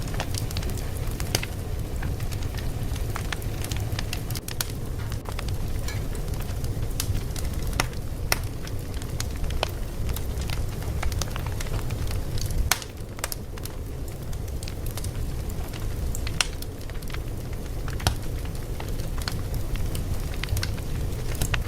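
Fire crackling: irregular sharp pops and snaps scattered over a steady low rumble.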